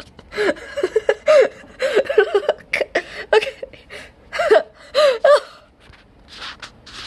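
A young person's excited high-pitched squeals, gasps and giggles: a string of short vocal bursts that thin out near the end.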